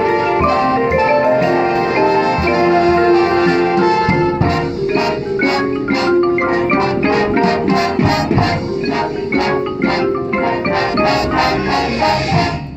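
High-school marching band music: held chords from the winds and brass for about the first four seconds, then a percussive passage of mallet keyboards and drums playing rapid repeated strikes.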